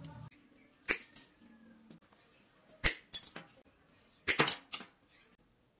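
Sharp metallic snaps and clicks as steel welding rod is cut with combination pliers, each with a brief high ring from the rod. There are two about a second in, two near three seconds, and a quick cluster of four or five near the end.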